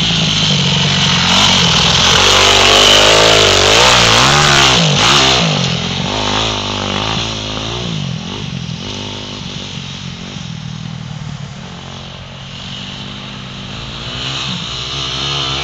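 2009 Yamaha YZ250F's single-cylinder four-stroke engine revving as the dirt bike is ridden, its pitch rising and falling with the throttle and gear changes. It is loudest in the first five seconds, drops away around two-thirds through, then grows louder again near the end.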